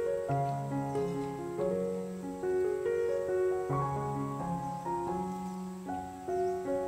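Background piano music: a gentle melody of held notes over low bass notes.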